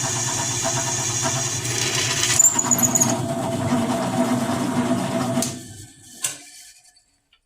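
Drill press running as a Harbor Freight Warrior titanium-coated bit is fed slowly into steel, with a brief high squeal from the bit cutting about two and a half seconds in. The motor is switched off at about five and a half seconds and spins down, followed by a single click.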